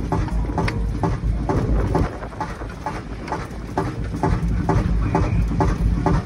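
Machinery running: a steady low rumble with a regular click about three times a second.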